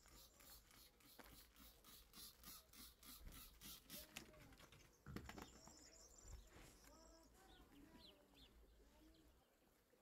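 Trigger spray bottle spritzing liquid cleaner onto a wooden tabletop in a quick run of faint sprays, about three a second, for the first four seconds. A single thump about five seconds in, followed by faint chirping.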